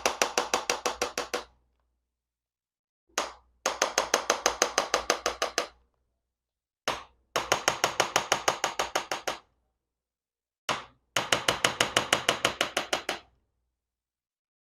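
Chiropractic activator gun firing rapid runs of sharp clicks as it delivers quick adjusting thrusts to the vertebrae: each set is one click, then about half a second later a fast string of about fifteen clicks, about seven a second, for about two seconds. The tail of one set is followed by three full sets, spaced a few seconds apart.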